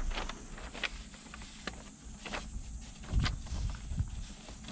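A sheet of paper rustling and crackling as it is pressed and smoothed by hand against a car's fabric headliner, with a few soft handling thumps about three seconds in.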